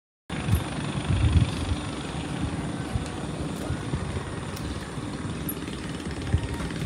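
Wind buffeting the microphone outdoors: a steady rushing noise with an uneven low rumble that surges hardest about a second in.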